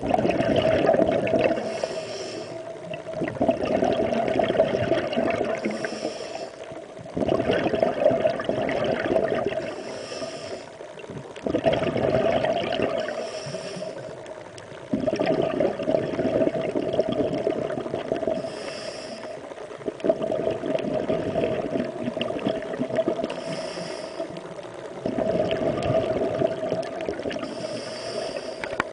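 Water sloshing and bubbling against an underwater camera, with a swimmer's heavy breathing through a snorkel at the surface, a breath every three to four seconds.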